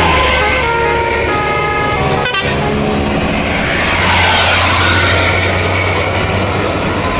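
Bus 'telolet basuri' musical horn playing a stepped tune of several tones at once, over the low steady hum of the bus engine. The tune breaks off briefly about two seconds in and picks up again. A rush of noise swells around the middle.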